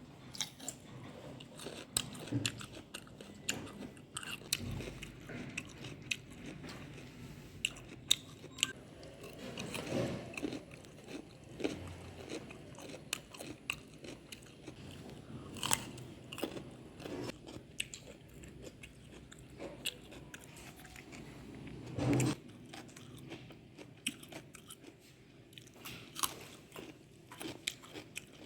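A person biting and chewing ripe papaya close to the microphone: many short mouth clicks and smacks, scattered and uneven, with a couple of louder bites.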